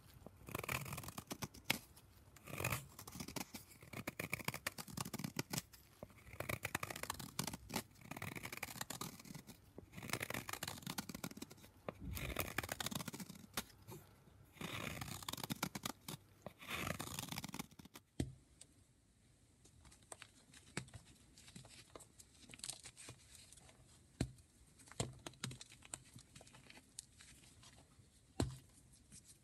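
Block of gym chalk being shaved, about one scraping stroke a second. About two-thirds of the way in it switches to quieter chalk crumbling, with scattered small crunches and crackles.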